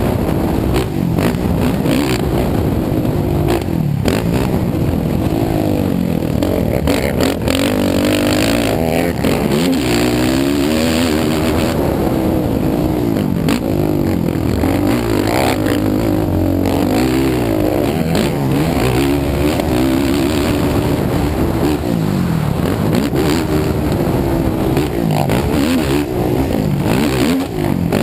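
Sport ATV's engine revving up and down over and over as the rider throttles through the turns and straights of a dirt motocross track, heard from a helmet-mounted camera, with a few sharp knocks over bumps.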